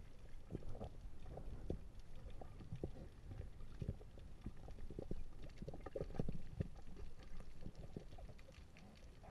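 Muffled underwater sound: a low, steady rumble with irregular soft knocks and clicks from a spearfisher handling the speargun and its shooting line.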